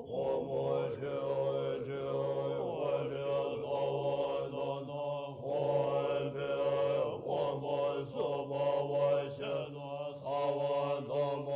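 Mantra chanting, with a melody that rises and falls over a steady low drone.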